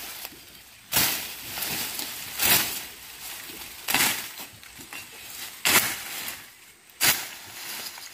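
A long-handled billhook (a koduval blade on a pipe handle) slashing through weedy brush: five chops about every second and a half, each followed by a brief rustle of cut stems and leaves.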